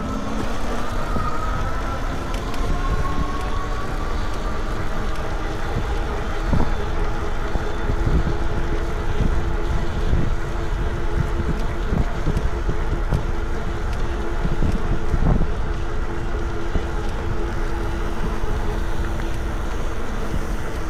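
Electric bike riding along: a steady motor whine from the Lectric XP 2.0's rear hub motor that rises in pitch over the first few seconds and then holds steady, under constant wind and road rumble on the bike-mounted microphone.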